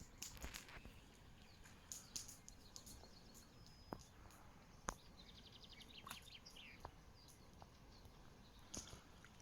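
Faint birdsong: scattered short, high chirps, with a rapid trill of repeated notes about five seconds in. A few sharp clicks stand out.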